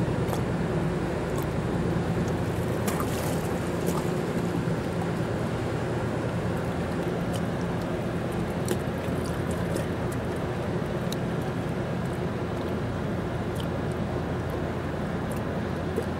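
Steady low drone of a loaded push convoy's diesel pushboat engine, with a broad wash of wind and water noise over it and a few faint light splashes of water at the bank.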